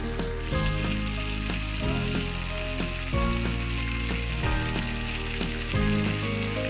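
Spice-coated mati aloo (taro) chunks sizzling steadily as they fry in oil in a pan, the sizzle swelling up about half a second in. Background music with a repeating bass note plays over it.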